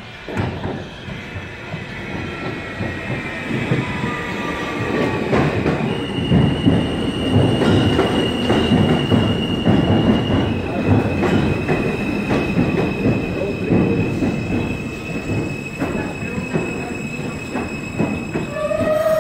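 R160A-2 subway train pulling into the station and braking to a stop: rumbling wheel and rail noise with a whine that falls in pitch over the first few seconds, then a steady high-pitched whine or squeal as it slows. A short pitched tone sounds right at the end.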